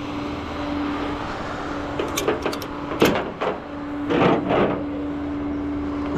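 Several clunks and rattles, the sharpest about three seconds in, over a steady low hum.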